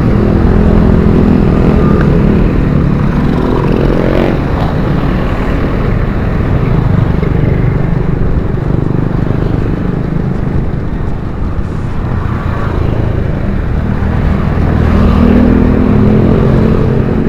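Road traffic: motor vehicles, motorcycles among them, passing close by over a steady low rumble. One engine rises in pitch about three to four seconds in, and another passes near the end.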